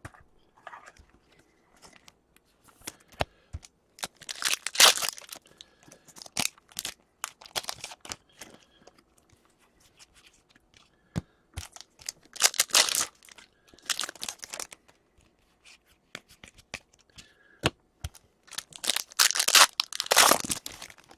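Hockey card pack wrappers being torn open and crinkled, in several loud bursts, with scattered clicks and snaps from the packs and cards being handled between them.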